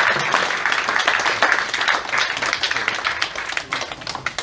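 Audience applauding: many hands clapping densely, thinning out and fading toward the end.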